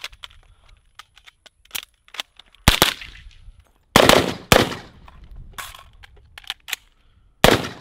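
Suppressed 9mm MP5-type carbine firing single shots: four loud reports, two of them about half a second apart in the middle, with fainter sharp cracks in between.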